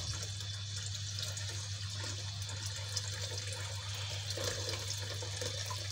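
Water being poured into an aluminium pot of rice, potatoes and tomatoes for tahari, a steady watery hiss.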